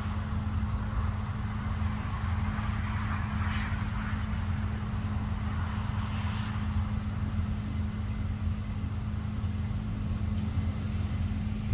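Combine harvester running in a wheat field: a steady low engine drone with a constant hum.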